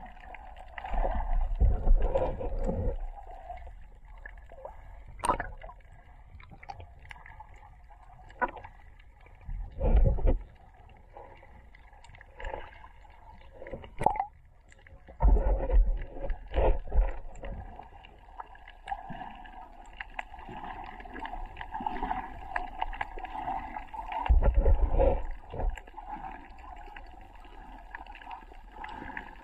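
Muffled underwater sound heard through a camera's waterproof housing: water surging and sloshing past in loud low rumbles, about four times, as the swimmer moves. A couple of sharp clicks come through as well.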